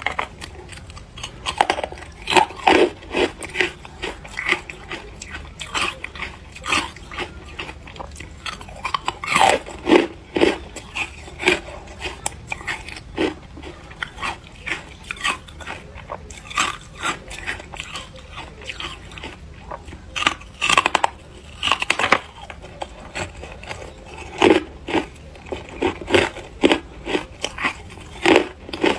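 Carbonated ice, frozen white and brittle, crunched between the teeth: a run of sharp, irregular crunches and cracks, bunched in quick clusters as each bite is chewed.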